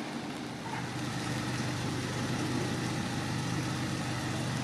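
Fire engine idling with a steady low hum.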